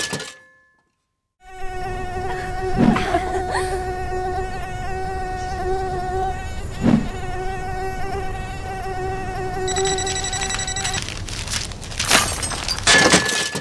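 Small drone's propellers buzzing with a steady high whine, starting after a second of silence, with a couple of brief knocks. Near the end a loud burst of rustling and clattering as the drone crashes into tall grass.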